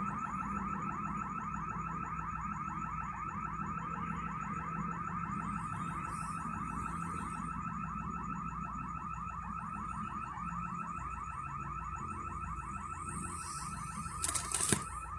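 Building security alarm sounding a steady, fast-repeating electronic warble. It is a false alarm, which the listener assumes a worker's leaf blower set off by accident. A few brief knocks come near the end.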